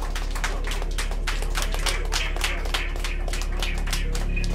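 Live electro-industrial music: fast, irregular clattering percussive hits over a steady low electronic drone, with a deeper bass tone swelling in near the end.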